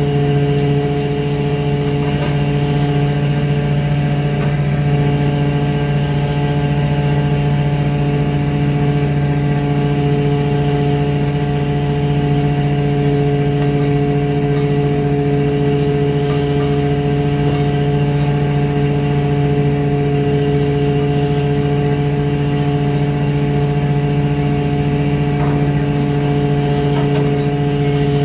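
A fishing boat's engine running at a constant speed, giving a steady, unchanging hum.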